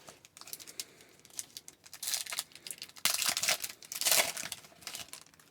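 Foil wrapper of a hockey card pack crinkling and tearing as it is opened, loudest in the second half.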